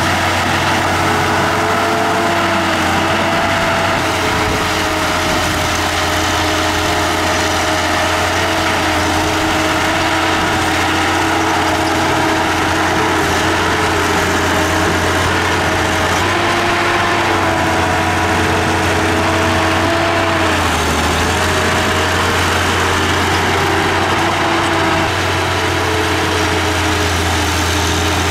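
Diesel engine of a Komatsu D31P crawler dozer running steadily, its pitch shifting up and down slightly now and then.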